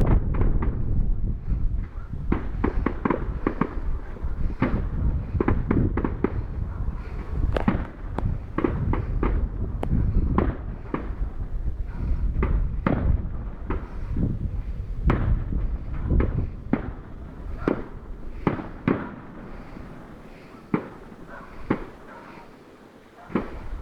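Fireworks display: a dense run of sharp bangs and pops over a low rumble, thinning out to scattered bangs near the end.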